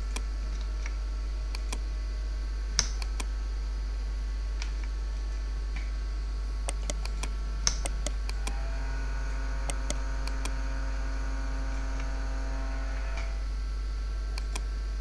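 Scattered sharp computer mouse clicks, the two loudest about 3 and 8 seconds in, over a steady low electrical hum.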